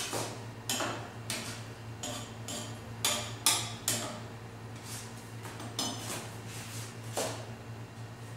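Metal ladle stirring soup in a metal cooking pot: about a dozen irregular clinks and scrapes against the pot's side, the loudest about three to four seconds in, over a steady low hum.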